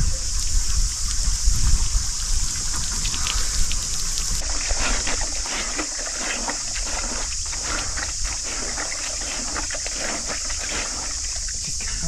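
Water from an outdoor shower splashing and trickling, with a steady high-pitched insect buzz throughout. A low rumble sits under it in the first two seconds.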